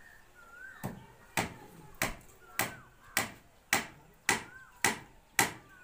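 Hammer blows in a steady rhythm, nearly two a second, starting about a second in, while bamboo props are knocked into place for concrete shuttering.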